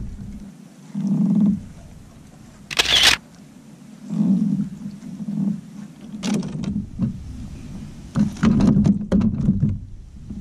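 Irregular knocks and bumps of handling aboard a fishing kayak, with one short sharp burst about three seconds in and clusters of quick clicks near the middle and toward the end.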